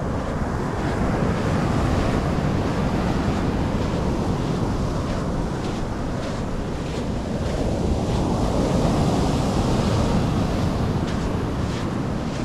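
Sea waves breaking and washing up on the beach, with wind rumbling on the microphone; the surf swells about a second in and again about eight seconds in.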